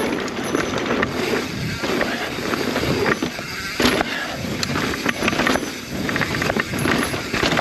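Mountain bike rolling over a rough, rocky trail: the tyres crunching over rock and dirt, with frequent clicks and knocks as the bike rattles over the bumps.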